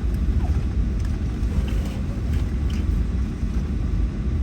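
Steady low rumble of a Boeing 757-300 airliner heard inside the cabin, around the time of arrival at the destination.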